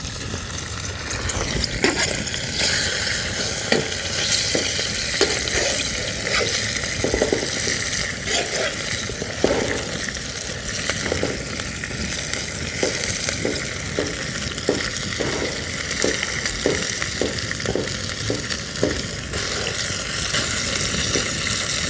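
Hamburger patties sizzling and frying in a skillet, a steady hiss with many short knocks and scrapes scattered through it, most frequent in the second half.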